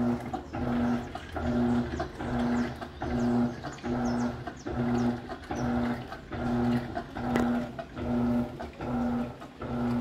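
Electrolux LCA 12 kg top-loading washing machine agitating a load of clothes in water: the motor hums in even strokes about once every 0.8 seconds as the wash action turns back and forth, with water and laundry churning under it.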